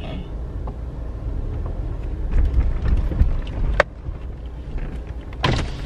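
Low, steady rumble inside a car's cabin as the car rolls slowly along, with a sharp click a little before four seconds in and a short knock near the end.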